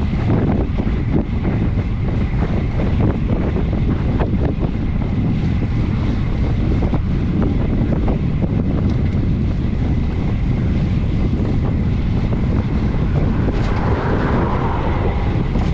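Wind buffeting the microphone of a bicycle-mounted camera riding at speed, a steady low rush with many small rattles and knocks from the road.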